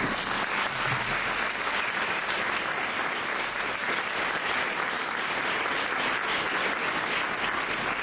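Audience applauding steadily as the song ends.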